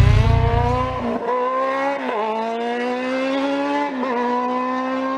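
High-revving motorcycle engine accelerating hard through the gears. The pitch climbs steadily and dips briefly at each of three upshifts, about a second, two seconds and four seconds in.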